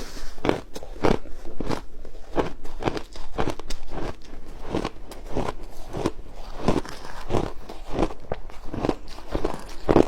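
Ice being bitten and chewed close to the microphone, crunching in a steady run of about two crunches a second.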